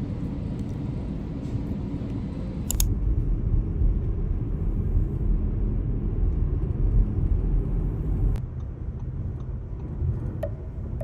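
A car on the road, a steady low rumble of driving that grows heavier for about five seconds after a sharp click about three seconds in.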